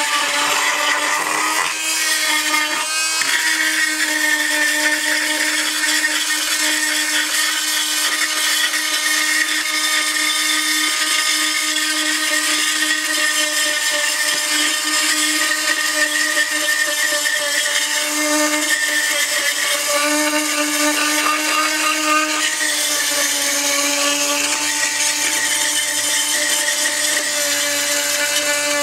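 Chicago Electric oscillating multi-tool with a carbide tile blade running steadily, its blade grinding along the grout edge of an old floor tile: a steady high hum with a gritty rasp. The pitch sags briefly a few times past the middle as the blade is pressed harder.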